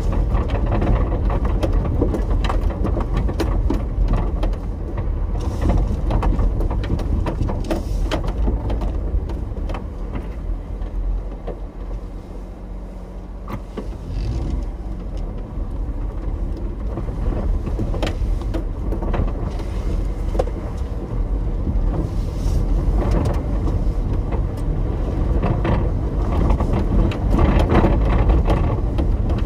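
Daihatsu Hijet kei truck in four-wheel drive driving over a gravel riverbed, heard from inside the cab: engine running under a rumble of tyres on loose stones with many small knocks and rattles. It eases off about halfway, a steady engine note showing for a moment, then picks up again.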